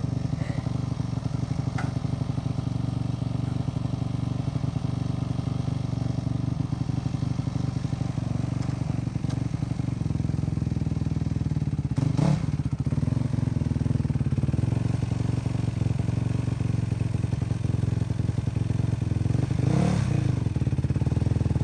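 Yamaha WR450F dirt bike's single-cylinder four-stroke engine idling as it warms up, revved briefly about twelve seconds in and again near the end.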